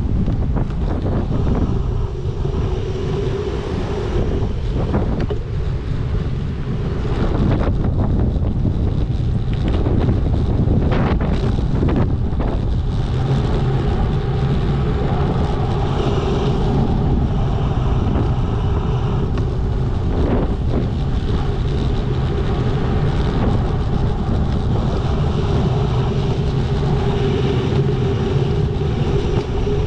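Wind rushing over the microphone of a bike-mounted camera while riding, mixed with the steady noise of road traffic.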